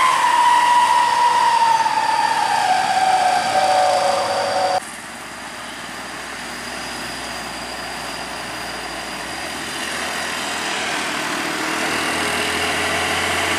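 Heavy diesel truck engines labouring up a steep grade: first a whine that falls steadily in pitch, cut off suddenly about five seconds in, then a Hino dump truck's engine pulling uphill, its note slowly rising as it comes closer and grows louder.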